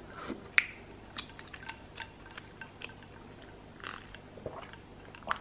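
Faint mouth sounds of tasting brown sugar boba milk: chewing tapioca pearls off a spoon and sipping from a glass, with a few small scattered clicks.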